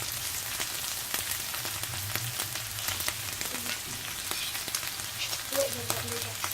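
Minced pork and vegetables sizzling in hot oil in a skillet, a steady hiss with many small crackling pops.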